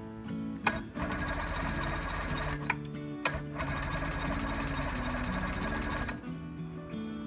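90 hp outboard motor with its cowling off, giving a fast, rhythmic mechanical clatter. The clatter breaks off briefly a little after three seconds in, resumes, and stops about a second before the end. Background music with bass notes plays underneath.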